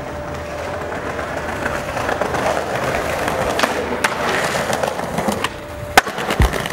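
Skateboard wheels rolling over concrete paving slabs, growing louder over the first few seconds, with a few light clacks. About six seconds in comes one sharp crack of the board.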